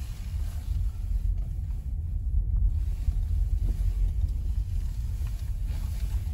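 Steady low rumble of road and tyre noise inside the cabin of a Toyota Noah E-Four hybrid minivan driving on a snow-covered road.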